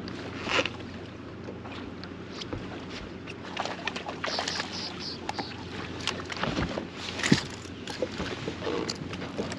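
A small bass splashing at the surface as it is reeled in and swung aboard a bass boat, with scattered splashes and knocks, the sharpest a little after seven seconds in, over water lapping at the hull and a steady low hum.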